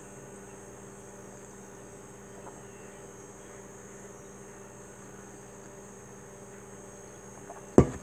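A glazed ceramic mug set down on a desk with one sharp knock near the end, over a steady low electrical hum and a faint high whine.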